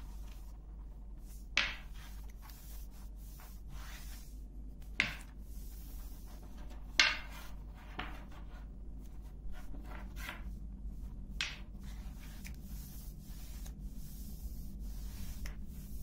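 Long thin wooden rolling pin rubbing and rolling over a paper-thin sheet of dough on a floured table, with four short sharp swishes as the sheet is rolled and flicked, the loudest about seven seconds in.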